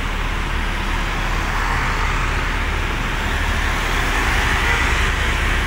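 Road traffic passing: city buses, including a Zhongtong articulated bus, along with cars and motorbikes. A low engine rumble runs under tyre and road noise, which grows a little louder around the middle.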